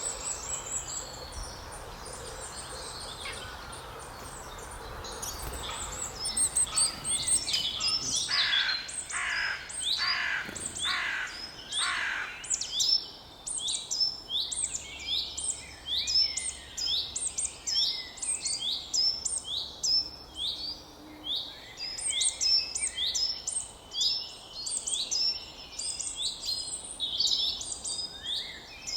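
Woodland birdsong: a quiet start, then a run of about five loud repeated call notes around a third of the way in, followed by a busy stream of rapid high chirps and song from several birds to the end.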